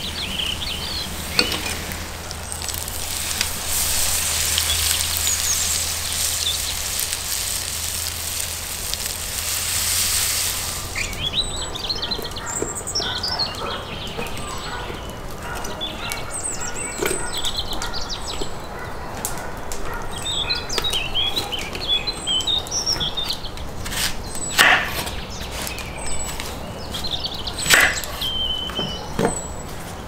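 Small birds chirping. A steady hiss with a low hum underneath stops abruptly about a third of the way through. In the last third come several sharp knocks of a kitchen knife cutting an onion on a wooden chopping board.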